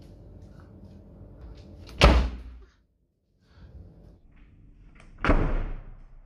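Two loud thuds about three seconds apart, each dying away within a second, over a steady low hum.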